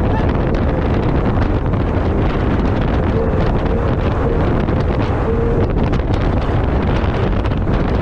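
Loud, steady wind buffeting the microphone on a 70 hp inflatable race catamaran running at speed, with the rush of water off the hull.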